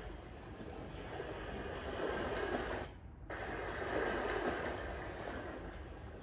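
Ocean surf: waves washing in with a steady hiss that swells twice. The sound drops out briefly about three seconds in.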